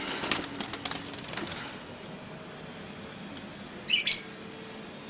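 Doves flapping their wings in a cage, a flurry of rapid wingbeats lasting about a second and a half. About four seconds in comes a short, loud, high-pitched bird call in two parts.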